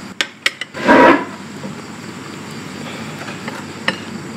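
A wooden chair knocked and scraped across a tiled floor as someone sits down at a table, with a few sharp knocks and one loud scrape about a second in. A steady rushing background noise continues throughout.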